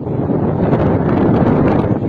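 Loud, steady rushing of wind on the microphone, cutting in suddenly at the start.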